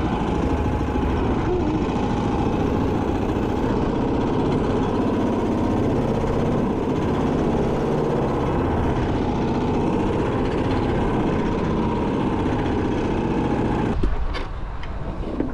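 Small air-cooled petrol engine of a wooden fishing boat running steadily under way. It cuts off abruptly near the end, leaving quieter wind and water.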